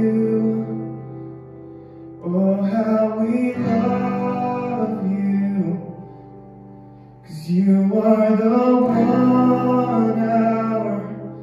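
Worship music: a voice singing long, held phrases over guitar and sustained low accompaniment, with the singing falling away briefly between lines about two and seven seconds in.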